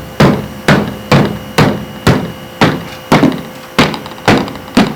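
Hammering: a steady run of hard knocks, about two a second.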